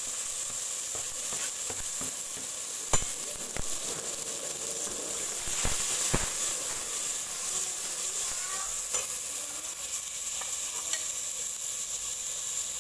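Diced tomatoes, garlic and lemongrass sizzling in hot oil in a stainless steel pot, stirred with a metal ladle that knocks against the pot a few times, loudest about three seconds in.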